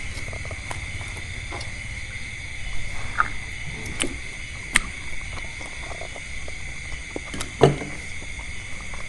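Eating sounds: scattered short clicks and wet smacks from chewing and utensils, a few seconds apart, over a steady high-pitched hum.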